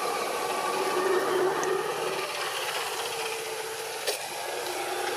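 Steady outdoor background noise, a broad hiss with faint distant hum, and one sharp click about four seconds in.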